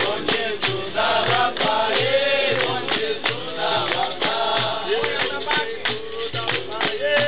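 Live capoeira roda music: voices singing over a steady beat from an atabaque hand drum and the jingling strikes of a pandeiro tambourine.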